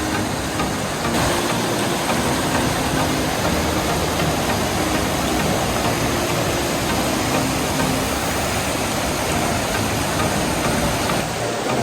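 A waterfall's heavy flow, a steady rush of falling water close by; the falls are running very strong after rain.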